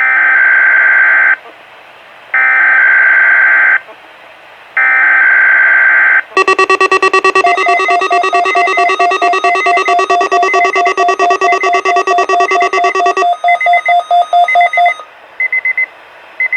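Three short bursts of SAME digital alert header data from a Weatheradio Canada broadcast. They are followed by weather radio receivers sounding their alert alarm, rapid electronic beeping over steady tones. The steady tones stop about two-thirds of the way in, and the beeping goes on in short groups.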